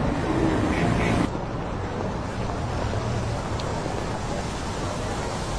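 Steady city street ambience: traffic and crowd noise as an even rush without distinct events, dropping a little and getting duller about a second in.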